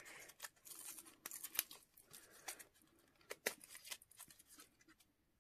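A packet of incense sticks being handled and opened: close, quiet crinkling and tearing of the packaging with many sharp crackles, which stops about four and a half seconds in.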